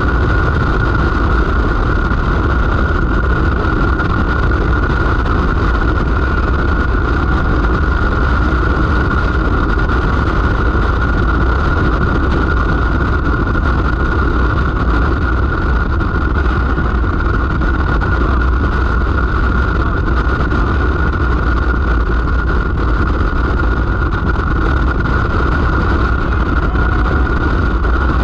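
Vehicle on the move at a steady speed, its engine running evenly with a constant low rumble and a steady whine.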